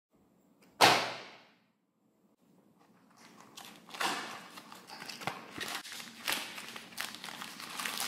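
A sharp swish about a second in that dies away quickly, then, from about three seconds in, the crinkling, rustling and small clicks of a cardboard box being opened and a plastic packaging bag being handled and pulled open.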